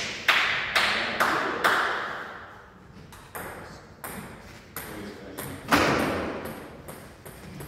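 Celluloid-type table tennis ball clicking sharply off bats and table, five hits about half a second apart in the first two seconds, each ringing on in the large hall. Lighter, irregular ticks of the ball follow, with one louder hit near the end.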